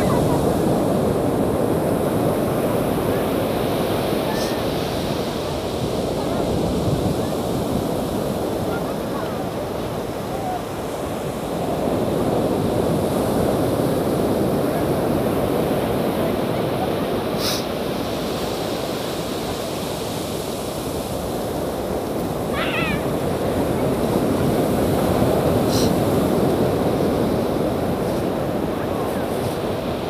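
Ocean surf breaking and washing up the beach: a steady roar that swells and eases every several seconds. A short high chirping call sounds once, about three-quarters of the way through.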